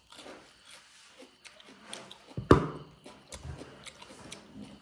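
A person eating chicken and cucumber close to the microphone: chewing and small wet mouth clicks, with one loud sudden thump about halfway through.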